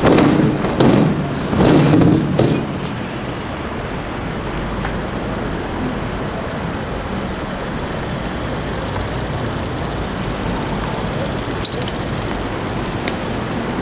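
Road traffic noise, with a louder passing vehicle in the first two and a half seconds, then a steady hum of traffic.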